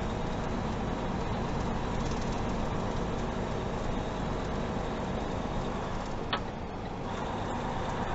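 Steady road and engine noise of a moving vehicle, with one short click about six seconds in.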